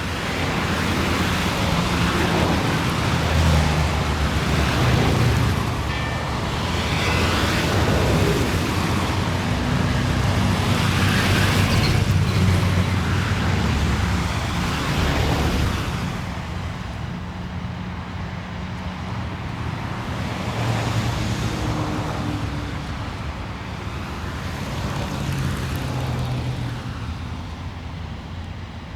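City street traffic: cars passing one after another, engine hum and tyre noise swelling and fading. Busier and louder in the first half, thinning out after about sixteen seconds.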